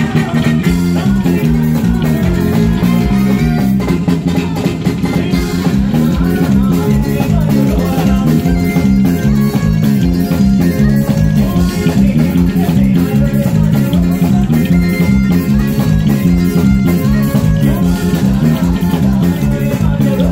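Live band playing: a bass guitar line is loudest, over a drum kit keeping a steady beat.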